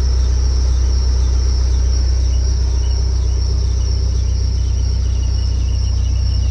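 2004 Mahindra Scorpio's engine idling, heard from inside the cabin as a steady low rumble. Over it runs a faint, steady high-pitched whine, which the owner puts down to a loose AC belt.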